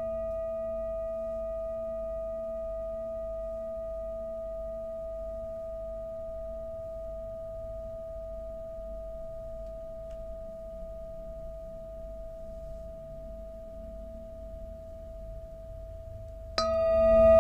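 Large metal singing bowl ringing after a mallet strike: one clear tone with higher overtones and a low hum beneath, fading slowly. About a second before the end it is struck again with the wooden mallet and rings out much louder.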